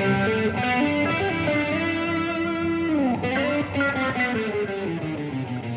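Background music: a guitar playing a melody, with a note sliding down in pitch about three seconds in.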